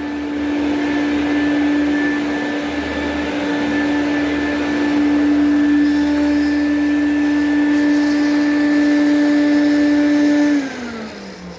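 Quantum X water-filtration upright vacuum cleaner running with a steady motor whine. It is switched off near the end, and its pitch falls as the motor winds down.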